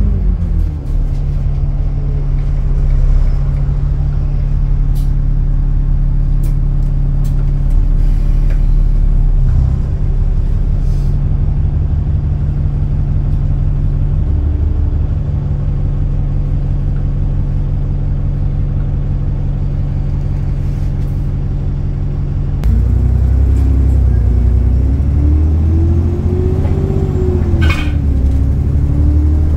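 Diesel engine and drivetrain of an Alexander Dennis Enviro400 double-decker bus, heard from inside the lower deck, holding a steady low drone for most of the time. About three-quarters of the way through it grows louder and its pitch climbs, falls, then climbs again as the bus accelerates and the automatic gearbox changes gear.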